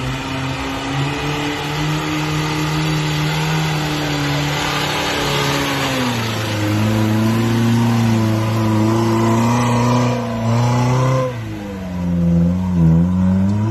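An off-road 4x4's engine running hard and revving, its pitch dropping about six seconds in, then dipping and climbing again near the end.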